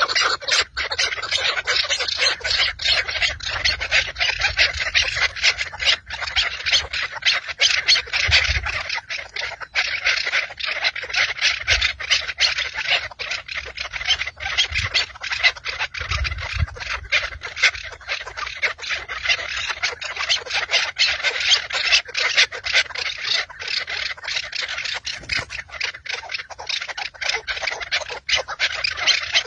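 Chukar partridges calling steadily: a dense, rapid chatter of clucking notes that keeps up without a break. A few brief low rumbles of wind or handling noise sound under it.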